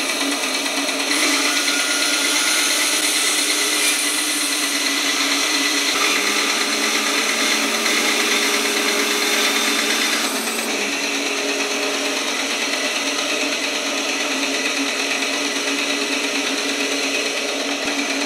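10-inch Rikon bandsaw running and ripping a block of olive wood, a steady machine sound. The cutting noise is brighter from about a second in until about ten seconds in. After that the saw runs on.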